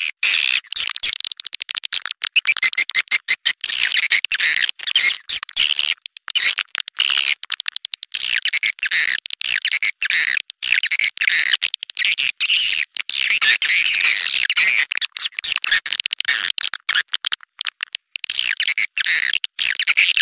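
Swiftlet calls played as a lure recording for swiftlets, a dense run of fast high twittering chirps broken by frequent brief gaps.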